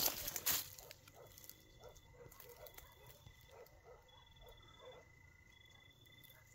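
Brush rustling briefly at the start, then faint night-time forest sounds: an insect trilling in short bursts of about half a second, and faint scattered distant animal calls.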